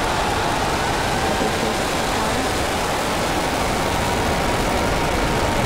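Falcon Heavy's 27 Merlin rocket engines firing at liftoff, a loud, steady noise of rocket exhaust.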